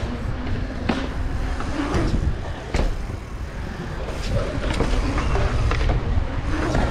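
Wind buffeting a helmet-mounted action camera's microphone as a mountain bike rolls over rough concrete, with several sharp knocks and rattles from the bike.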